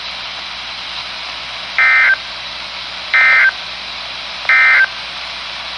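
Three short bursts of EAS/SAME end-of-message data tones, the warbling digital squawk that closes a NOAA Weather Radio alert, from a RadioShack 12-254 weather radio's speaker. Each burst is about a third of a second long and the three are evenly spaced, over a steady radio hiss. They mark the end of the severe thunderstorm warning.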